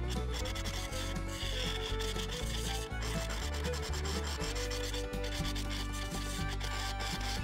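Crooked hollowing tool cutting inside a small box elder vase spinning on a wood lathe: a continuous rubbing, scraping sound of steel on end grain.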